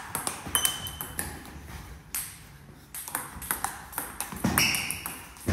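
Table tennis ball being struck hard in a fast rally, mostly backhands: a quick succession of sharp clicks of the celluloid-type ball on rubber bat and table, with a brief rushing noise near the end.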